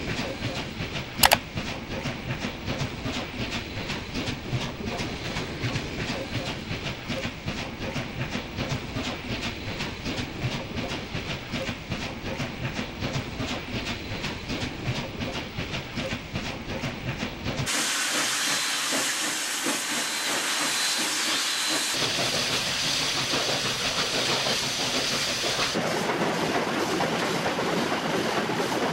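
Union Pacific Big Boy articulated steam locomotive running at speed, its exhaust beating in a rapid, even rhythm. About two-thirds of the way through, the sound changes to a steady hiss of steam.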